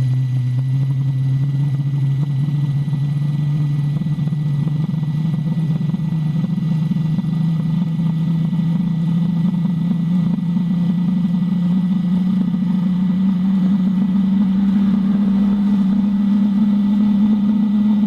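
Webasto diesel coolant heater running in its startup phase, its burner and blower making a steady drone that climbs slowly in pitch as combustion is brought up in a controlled way toward full load.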